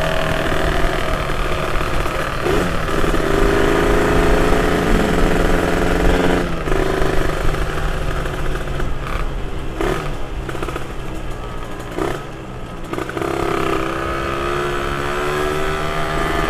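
Motorcycle engine running while riding, with road and wind noise. Its note climbs steadily and then drops back several times, and it runs quieter for a moment about twelve seconds in.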